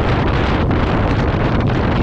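Wind rushing and buffeting over the microphone of a moving rider's camera: a steady, loud, low rumble.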